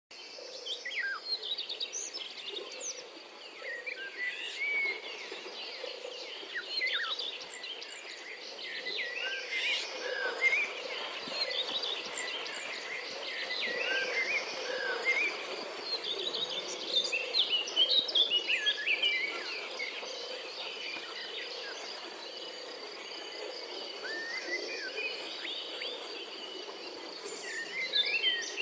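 Many birds chirping and calling over a steady, high insect trill.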